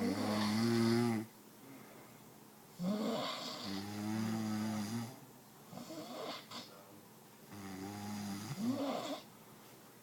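A woman snoring in her sleep: long, deep, pitched snores come every three to four seconds, with quieter breathing between them.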